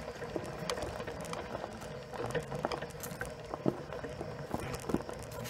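Self-balancing personal transporter's tyres rolling over loose river-bed gravel and pebbles, with irregular crunching and stones clicking, over a steady electric motor whine.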